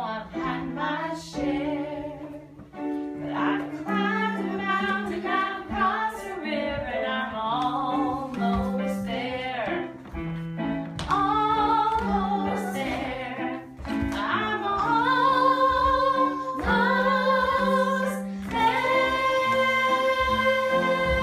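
Show tune with a female voice singing over instrumental accompaniment. The melody has several held notes, and the longest sustained note starts near the end.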